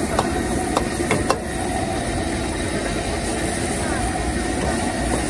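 Stir-frying on a street-stall gas wok burner: a steady rushing noise of the burner and frying, with a few sharp metal clinks of the spatula against the wok in the first second and a half.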